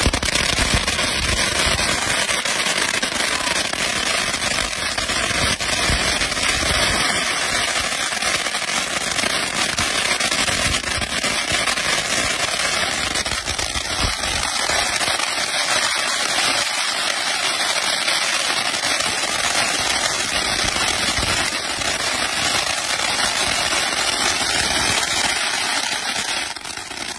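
Ground fountain firework spewing sparks: a continuous hissing rush with dense crackling throughout, at a steady level.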